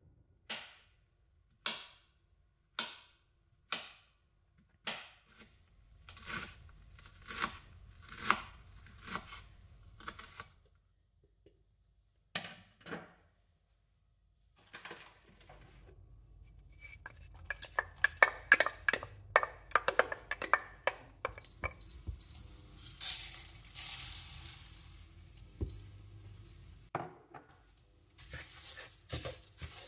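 Kitchen prep: a knife cutting through porcini on a wooden board about once a second, then a run of utensil clicks and knocks. Near the end, raw risotto rice sizzles in hot oil in a pan while it is stirred.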